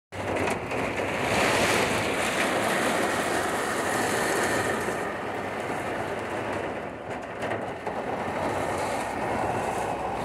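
Heavy rain pouring down in a storm that has just begun, a dense steady hiss, with gusting wind rumbling on the microphone. The hiss eases a little about halfway through.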